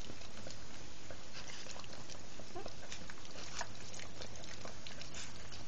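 Mother dog licking her newborn puppies while they nuzzle and suckle: a run of soft, irregular wet licking and smacking clicks, with a brief faint squeak a little before the middle.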